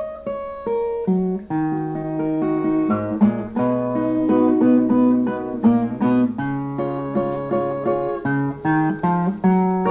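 Instrumental break of a song: a Brazilian viola plucking a melody in quick notes over lower held bass notes.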